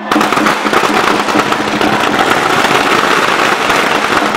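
A string of firecrackers going off, a dense, continuous rapid crackle of small bangs.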